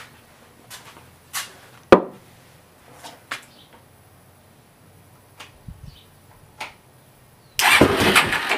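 Scattered light clicks and taps of handling, with one sharp knock about two seconds in. Near the end, the Suzuki QuadSport LT-Z400's single-cylinder engine is cranked over by its electric starter for about a second, a starting attempt on starting fluid after a no-start with no or weak spark.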